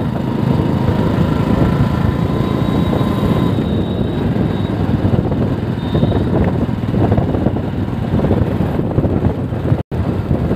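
Motorcycle riding along a road, heard from the rider's seat: a steady loud rumble of engine and wind on the microphone. The sound cuts out for an instant near the end.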